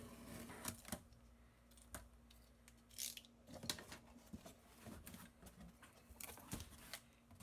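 Faint handling sounds of a cardboard box being opened: the packing tape slit, the flaps pulled open with a rustling scrape about three seconds in, then hands stirring foam packing peanuts near the end, with scattered sharp clicks throughout.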